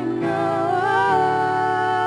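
Slow worship song: a woman's sung note, held with a slight waver and gliding upward about halfway through, over steady instrumental backing.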